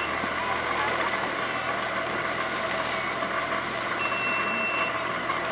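Steady machine noise: a hum of several held tones over an even hiss, like an engine or motor running without change. A thin high tone sounds for about a second near the end, and the sound cuts off abruptly.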